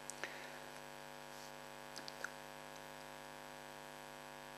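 Low, steady electrical mains hum in the recording, with a few faint small clicks.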